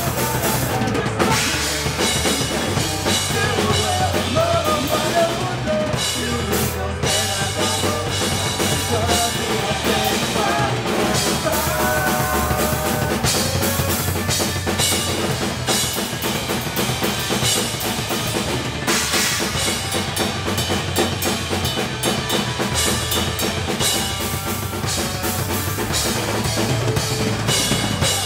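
Live rock band playing amplified: a drum kit driving a steady beat with bass drum and snare, under electric guitar and bass guitar.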